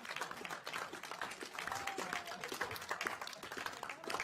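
A room full of people applauding, with dense clapping and scattered excited voices and cheers among it.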